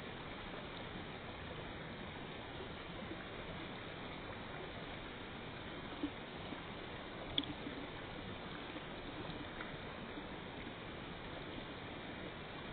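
Steady rushing of a shallow mountain river over stones. Two brief clicks stand out about six and seven and a half seconds in.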